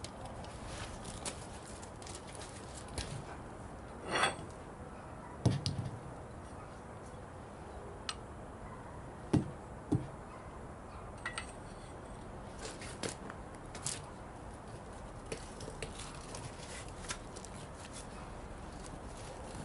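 Scattered clinks and knocks, irregular and a second or more apart, over a low steady background: a chain and load binder being handled and wrapped around a truck tire to squeeze the bead out toward the rim. The loudest knocks come about four, five and a half, and nine to ten seconds in.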